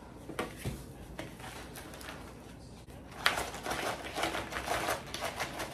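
Rustling and crinkling of fast-food packaging being handled and opened, with scattered clicks at first. The rustle grows thicker and busier about three seconds in.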